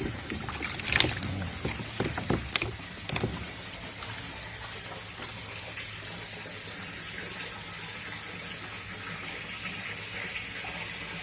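Water splashing and dripping several times in the first few seconds as small toman (snakehead) fish are handled in water, then a steady watery hiss.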